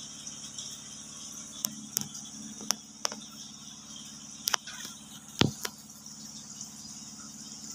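Night insects chirring steadily over a low, even hum, with scattered sharp clicks and pops; the loudest is a thud about five and a half seconds in.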